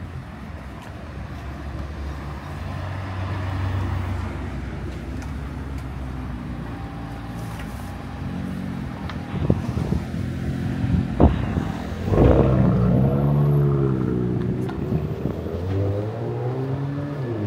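Road traffic passing: car engines running, one changing revs up and down in the second half, with a couple of sharp knocks around the middle.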